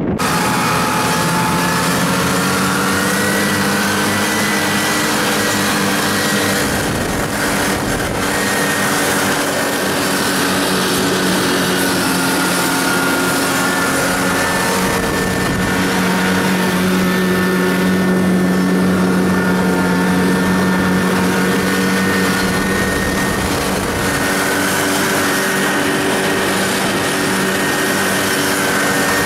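Snowmobile engine running steadily under way across snow, its pitch climbing a little in the first few seconds and then holding.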